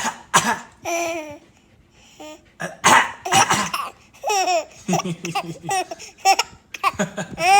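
Someone coughing in sharp bursts, and a baby girl laughing in short giggly bursts in reply, her laughing running through the second half.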